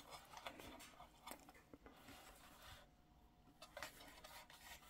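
Near silence, with a few faint, scattered clicks and rubs from a plastic toy helicopter being turned in the hands.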